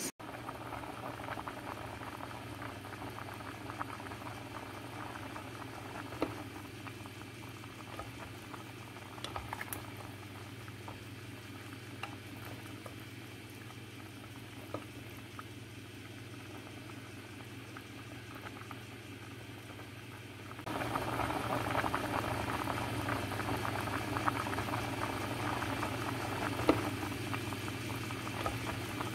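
Pot of water with macaroni boiling at a rolling boil, a steady bubbling and crackling, louder from about two-thirds of the way through.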